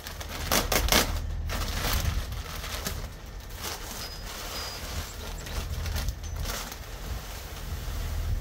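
A large woven-plastic feed bag of beet pulp shreds rustling and crinkling as it is pulled open, hefted and tipped toward a tote, with a burst of sharp crackles in the first second or so.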